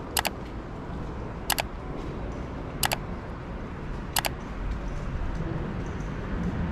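City street ambience with a low steady rumble of distant traffic. Four sharp double clicks come evenly, about a second and a third apart, over the first four and a half seconds.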